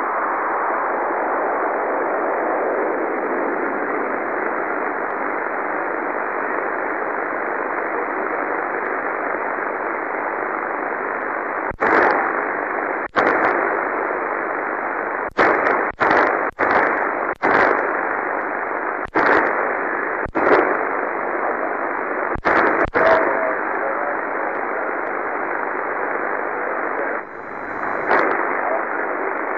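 Shortwave amateur radio receiver on the 40 m band hissing with band noise on an open frequency, heard through a narrow voice passband. About halfway through, a dozen or so sharp clicks and crackles break in over a few seconds, with one more near the end.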